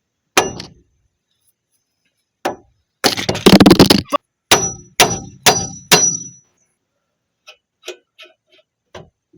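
Hammer blows on steel suspension parts, each strike ringing with a high metallic tone. A single blow comes first and another follows; after that comes about a second of rapid clattering, then four evenly spaced strikes about half a second apart.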